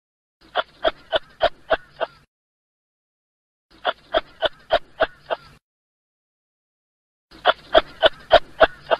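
Kangaroo calling in short, rapid repeated calls, about three a second, in three bouts of about six calls each with a second or more of silence between them.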